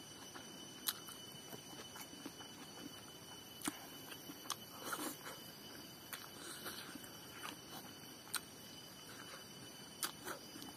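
Close-up eating sounds of a person chewing rice and meat eaten by hand: scattered sharp clicks and lip smacks, about one every second or two, with a few softer wet smacks near the middle. Faint steady high thin tones run behind them.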